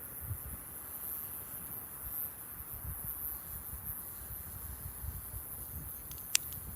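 Wood campfire burning, with one sharp crackle near the end, over a steady high-pitched chorus of crickets.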